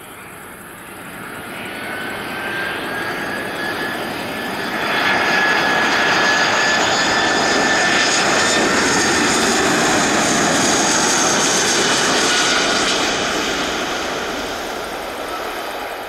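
Airbus A319-112's CFM56 turbofan engines on final approach as the jet flies past: a rushing jet noise with a steady whine that swells to its loudest midway, its pitch sinking slightly and the sound fading as the airliner moves on toward touchdown.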